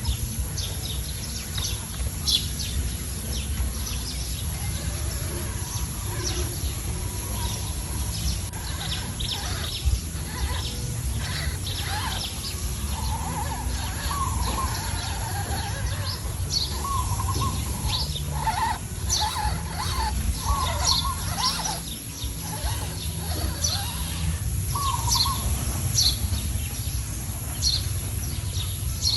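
Wild birds chirping, with many short, quick chirps and some wavering lower calls, over a steady low rumble and a faint high hiss.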